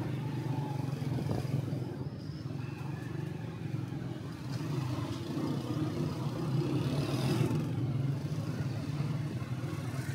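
Motorcycle engine running steadily while riding through a narrow street, a low drone that swells briefly about seven seconds in.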